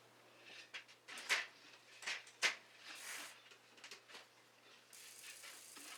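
Scattered short rubbing swishes and clicks of hand work on an old bicycle, sharpest about a second and two and a half seconds in.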